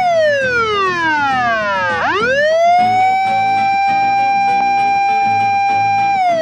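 Emergency vehicle siren wailing: the tone falls over about two seconds, sweeps quickly back up, holds steady for about three seconds, and starts falling again near the end.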